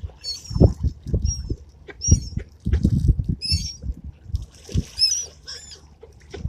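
Birds giving short, high, squeaky chirping calls, several overlapping, over low thumps and rumble.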